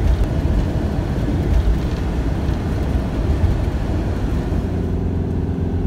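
Motorhome driving at speed, heard from inside the cab: loud, steady engine and road noise, with a steadier engine note showing through near the end.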